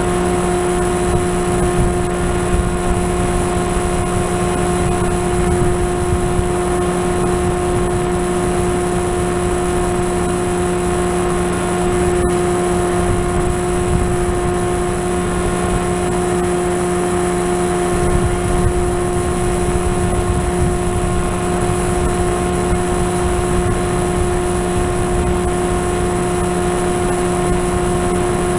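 FPV model aircraft's motor and propeller running at a steady, unchanging pitch, heard from the onboard camera, with wind rushing over the microphone.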